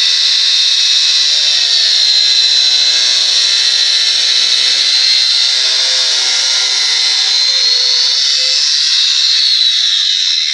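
Wonder Cut angle grinder running at full speed with an abrasive metal-cutting disc, slicing through a PVC pipe: a loud, steady high whine.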